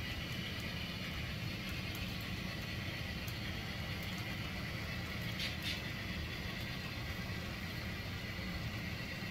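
Model railroad freight cars rolling along the track: a steady low rumble of wheels on rail, with faint clicks and a short rattle about five and a half seconds in.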